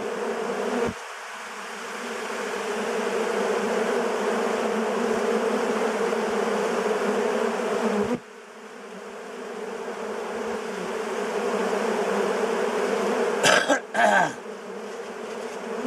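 Swarm of honey bees buzzing in a dense, steady hum that drops off sharply about a second in and again about eight seconds in, then swells back. A couple of short knocks near the end.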